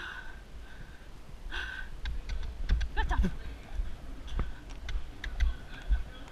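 Horse's hoofbeats on arena sand as it is ridden round, heard from the saddle as uneven clicks and low thuds that grow denser from about two seconds in.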